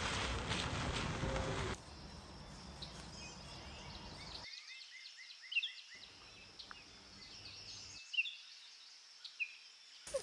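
A Honda Element's tyres rolling over gravel for about the first two seconds, then birds singing in woodland: a quick run of chirps followed by scattered short, falling whistles.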